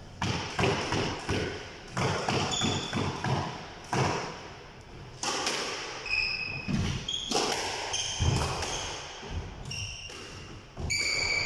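Squash rally: a quick, irregular run of sharp knocks as the ball is struck by rackets and hits the court walls and floor, with a few short high squeaks in between, in a reverberant court.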